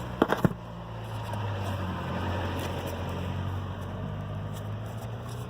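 Car engine running steadily as a low, even hum, with a few sharp clicks in the first half second.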